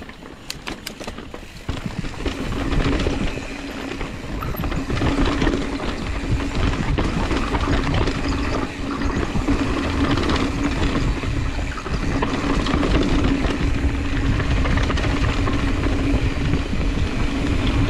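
Mountain bike riding fast down a dirt singletrack: wind buffeting the microphone and tyres rumbling over dirt and roots, with a steady whirring buzz through most of it. A few sharp rattling clicks come about a second in, and it gets louder from about two seconds in.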